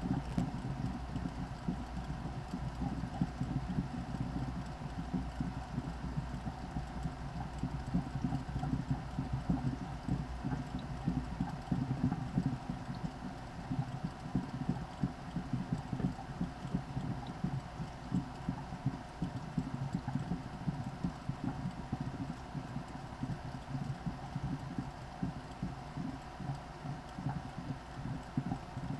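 VIVOSUN 203 CFM 4-inch inline duct fan running steadily: a constant hum with a fixed mid-pitched tone over a rapidly fluttering low rumble.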